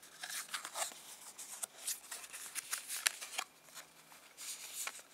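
Cardboard product box handled and turned over in the hands: a run of short, dry rustles and scrapes, thinning out for the last second or so.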